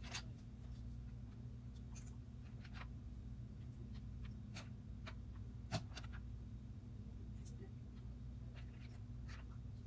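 Faint rustling and light clicks of fingers tearing raw spiralized squash strands over a plastic colander, over a steady low hum.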